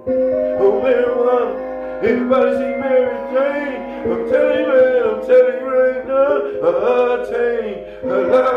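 Music: a man singing a wavering, sliding melody over held chord notes.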